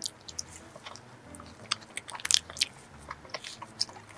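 Close-miked biting and chewing of a cream-filled black vanilla donut: a run of soft, wet mouth clicks and smacks, loudest a little past the middle.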